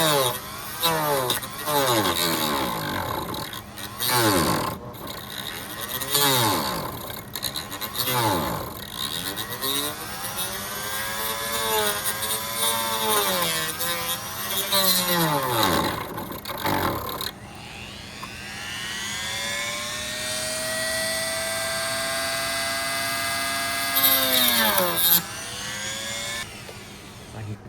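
Rotary tool grinding out the Bowden-cable slot in an inside door handle. Its motor pitch dips each time it is pressed into the cut and recovers, every second or two. About two-thirds of the way in it runs free at a steady high pitch for several seconds, then spins down near the end.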